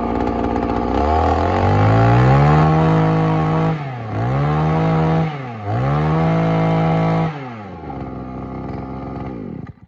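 Mitsubishi TB26 two-stroke brush cutter engine running just after a restart. It idles, is revved up three times with short drops between, then settles back to idle and stops near the end.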